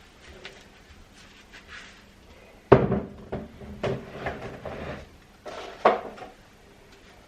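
Kitchen items and containers being handled and set down: a series of clunks and clatters, the sharpest about three seconds in and another near six seconds.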